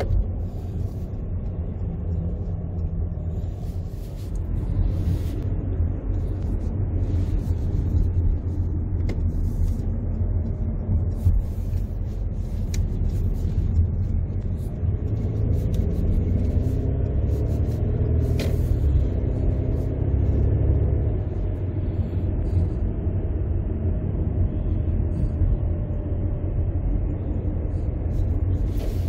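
Inside the cabin of a moving Mercedes C300T estate: steady low road and engine rumble. About halfway through, a pitched engine note slides up and down as the car pulls away and changes speed.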